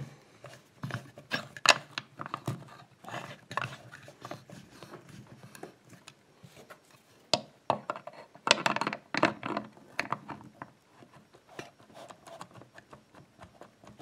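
Metal hand tools, a screwdriver and then pliers, scraping and clicking against the brass end cap of a combination padlock clamped in a vise as the cap is pried and worked loose. The clicks and scrapes come irregularly, with a denser cluster about eight to nine seconds in.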